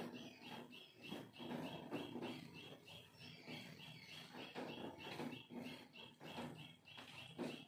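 Soft swishing of a cloth wiping marker writing off a whiteboard, stroke after stroke. Behind it a high chirp repeats evenly, about two or three times a second.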